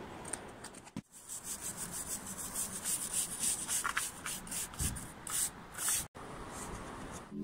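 A stiff-bristled climbing brush scrubbing chalk off a sandstone hold in quick repeated strokes, about three a second.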